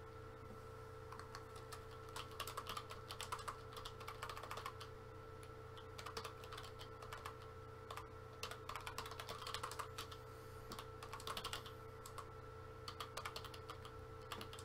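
Typing on a computer keyboard: runs of quick keystroke clicks with short pauses between them, over a faint steady electrical hum.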